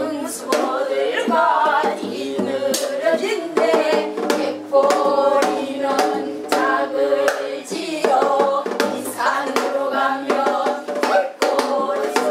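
Women singing a Korean Namdo folk song (minyo), the held notes shaking with heavy vibrato, with sharp hand claps keeping time throughout.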